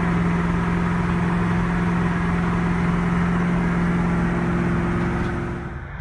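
Massey Ferguson 4880's V8 diesel engine running at a steady drone under load, heard from inside the tractor's cab as it pulls tillage equipment through the field. Near the end the sound drops to a quieter, more distant engine.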